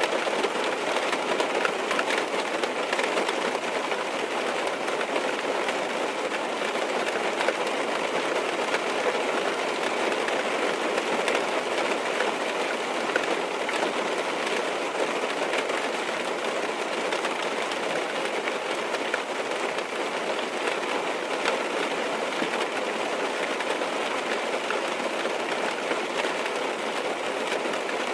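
Steady rain pattering on a car's roof and windows, heard from inside the cabin: a dense, even patter of drops.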